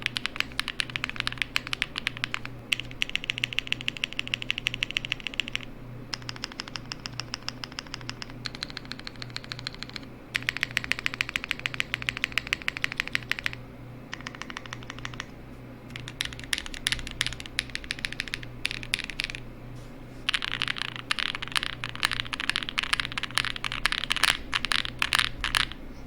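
Plateless custom mechanical keyboard with lubed long-pole Ink switches and GMK keycaps: its stabilized long keys are pressed rapidly over and over in a stabilizer test. The presses come in several fast runs of clicks with short pauses between, each run a little different in tone.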